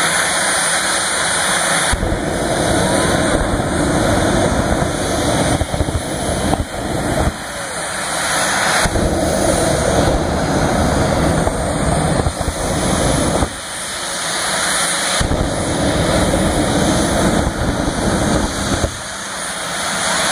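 Two jet-powered drag racing cars running their jet engines at the starting line, lighting the afterburners in their pre-run fire-up; a loud, dense noise that surges and drops back several times.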